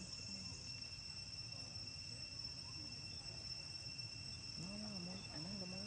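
Steady high drone of insects, holding two even pitches without a break. Near the end, a person's voice rises and falls briefly beneath it.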